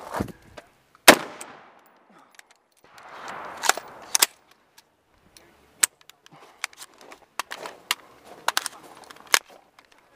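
AR-15 rifle firing single shots at irregular intervals. The first and loudest comes about a second in, followed by a string of sharper, quieter cracks and knocks.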